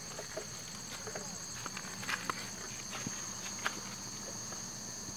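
Night insects, crickets or similar, trilling steadily in a continuous high-pitched chorus, with a few scattered clicks and rustles of things being handled close by.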